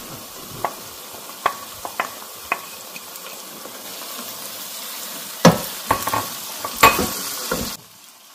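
Wooden spoon stirring diced onions into a frying sauce in a pan, the sauce sizzling steadily and the spoon knocking against the pan, with a few louder knocks past the middle. The sizzle cuts off suddenly near the end.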